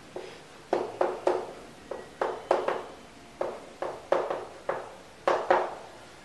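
Chalk tapping and scratching on a chalkboard as a line of words is handwritten: a quick, irregular run of about fifteen sharp taps that stops shortly before the end.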